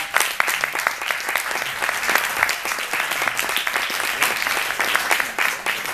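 Audience applauding: many hands clapping in a steady, dense round.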